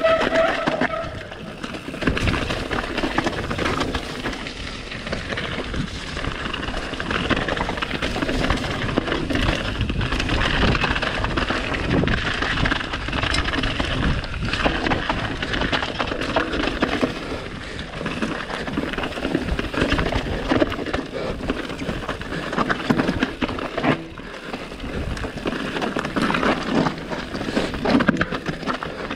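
Mountain bike riding down a dirt trail: tyres rolling over dirt and rock, with frequent short clicks and rattles from the bike.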